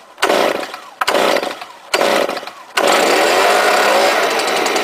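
Stihl BG 86 leaf blower's small two-stroke engine being pull-started on choke: three quick pulls that each fire briefly and die away, then the engine catches about three seconds in and keeps running. It is a cold start after a month unused, with the muffler's spark arrestor screen freshly cleared of carbon.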